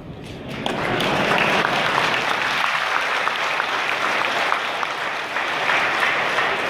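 A large audience applauding: the clapping starts about half a second in, builds within a second and keeps going steadily.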